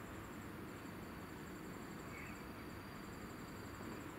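Quiet outdoor ambience: a steady low rumble under a high, thin insect chirping that comes in trains of quick pulses with short gaps, plus a faint steady high whine.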